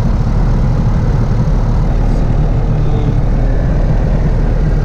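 Diamond DA-40F's four-cylinder Lycoming engine and propeller running steadily at idle just after start-up, heard from inside the cockpit as a loud, even, low rumble.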